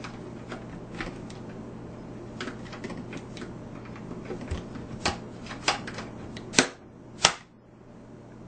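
Slow cooker being handled: a run of light clicks and taps, with two louder sharp clicks close together about two-thirds of the way in, over a faint steady hum.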